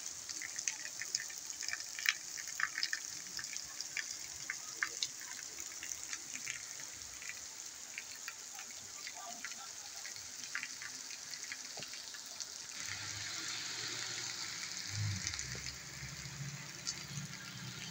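Heavy rain falling on a paved street: a steady hiss with many sharp drops and taps close by. A low rumble joins in the last few seconds.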